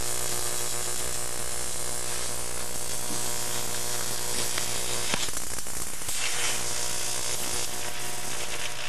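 Jacob's ladder high-voltage arc buzzing steadily with a hiss and a few sharp crackles as it burns inside a small Christmas light bulb held between the rods.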